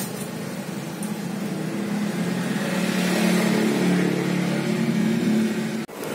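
A motor vehicle's engine running steadily and growing louder over the first few seconds, then breaking off abruptly near the end at a cut.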